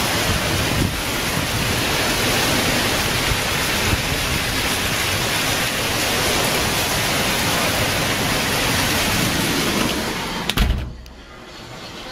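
Hurricane wind and heavy rain, a loud steady rushing that rises and falls in gusts. About ten and a half seconds in there is a knock, then the rush drops away suddenly to a faint muffled hush.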